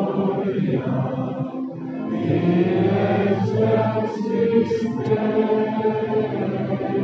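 Liturgical chant sung by a group of voices in long held notes.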